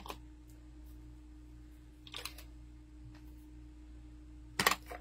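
Handheld craft paper punch clicking as it punches shapes out of paper: a soft click at the start, a pair of clicks about two seconds in, and a loud double snap near the end, over a steady low hum.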